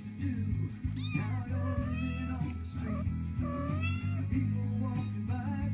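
Kittens meowing in high, arching calls, about three times, over steady background music.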